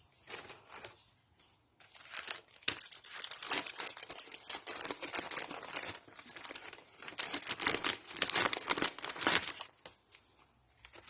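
Packaging being crumpled and torn open by hand: a dense run of crinkling and tearing from about two seconds in until near the end, with quieter rustles before it.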